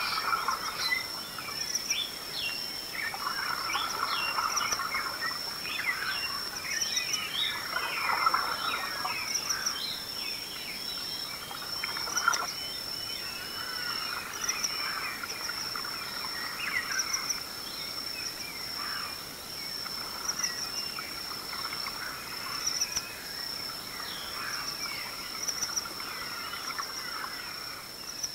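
Dawn chorus: many birds calling and singing at once in short chirps and whistles, over a steady high-pitched trill.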